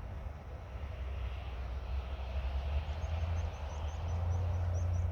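Distant jet airliner engines rumbling steadily, with a hiss over the low roar. Faint, short, high chirps repeat about three times a second from about halfway through.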